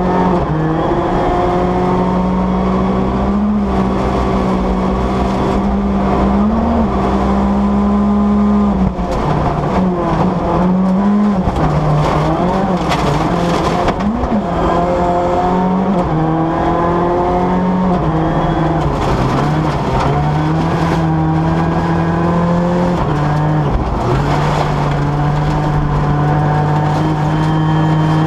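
Ford Fiesta rally car's engine heard from inside the car, held at high revs at full speed. Its pitch holds level, swoops up and down several times in the middle as the throttle comes off and on, then steps between pitches with the gear changes.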